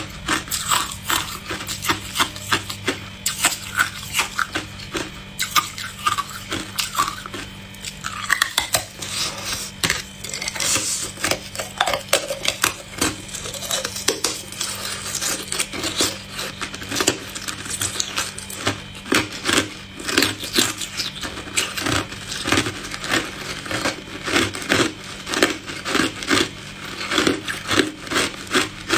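Hard clear ice being bitten and chewed: a dense run of sharp crunches and cracks, several a second, over a faint steady hum.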